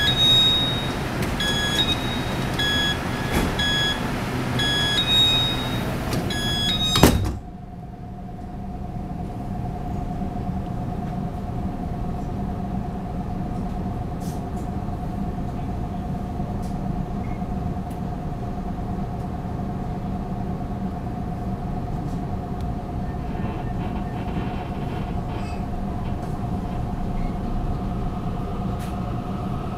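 Door-closing warning beeps on a Taiwan Railways EMU600 commuter train, repeating about one and a half times a second, cut off about seven seconds in by a loud thud as the sliding doors shut. A steady hum with one held tone from the standing train follows, and near the end a rising whine as the train starts to pull away.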